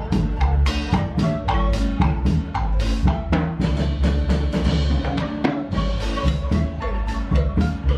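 A live dance band playing, with a drum kit keeping a steady, quick beat over a strong bass line and sustained melody notes.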